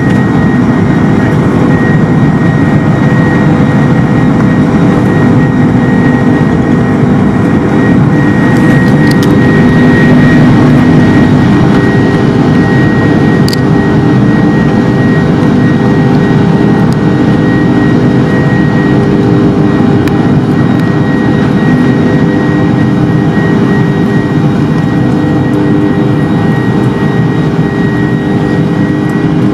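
Cabin noise inside a Boeing 747-400 climbing after takeoff: a loud steady roar of the jet engines and rushing air, with a steady whine and hum running through it.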